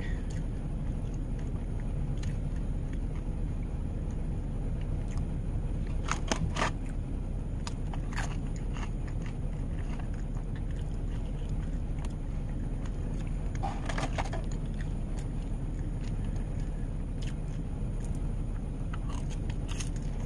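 Chewing, with a plastic fork clicking and scraping against food a few times, over a steady low rumble inside a van's cabin.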